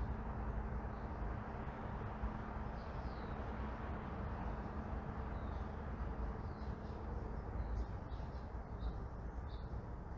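Neighbourhood ambience: a steady low hum of distant traffic with small birds chirping here and there, the chirps coming more often in the second half.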